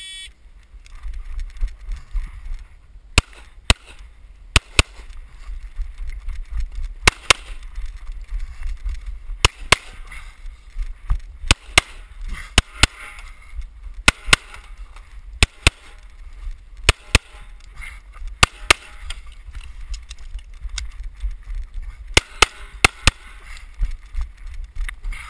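Pistol shots fired through a USPSA stage, mostly in quick pairs with short pauses between targets, ending in a fast string of about six shots, over a steady low rumble.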